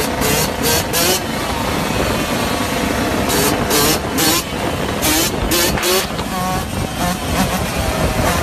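Yamaha dirt bike engine revved up and down again and again while the bike is held in a wheelie, its pitch rising and falling several times, with short rushes of noise in between.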